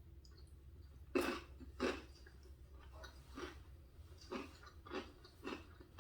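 A person chewing a mouthful of Cheetos mac and cheese close to the microphone: a series of separate chews, the two loudest a little after one and two seconds in, then softer ones about every half second to a second.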